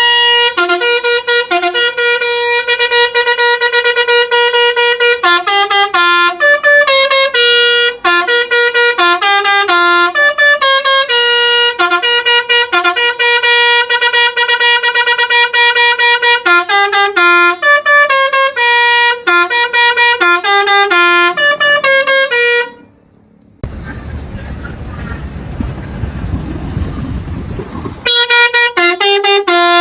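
A bus's basuri telolet horn, a multi-trumpet musical air horn, playing a tune in a run of held and quickly stepping notes. It stops about 23 seconds in, leaving a few seconds of low rumbling noise, then starts playing again near the end.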